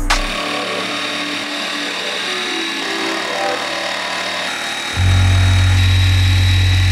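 Dremel electric scroll saw running and cutting through a small wooden stick: a steady noise with a thin high whine. A deep bass note of background music comes in about five seconds in.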